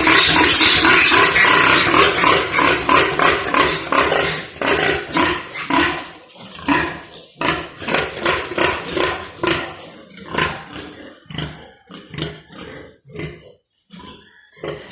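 Pigs squealing loudly and continuously, then breaking into shorter, separate cries that grow quieter after about six seconds.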